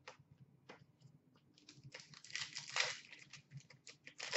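Trading cards being handled and flipped through: light clicks and snaps of card stock sliding and being set down, with a longer rustle of cards about two seconds in.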